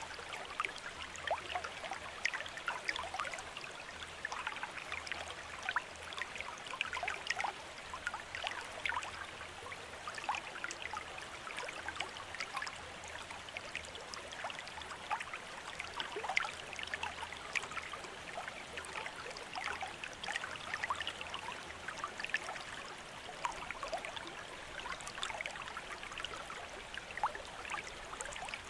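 Water trickling steadily from a bamboo fountain spout and splashing into a basin, with many small drips and splashes.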